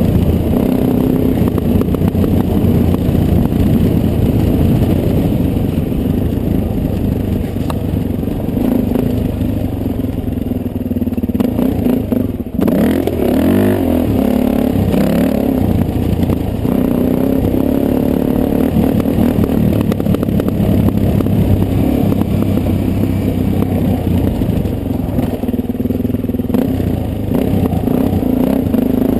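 Dirt bike engine running as the bike is ridden, its pitch rising and falling with the throttle; it drops off briefly about twelve seconds in, then revs back up.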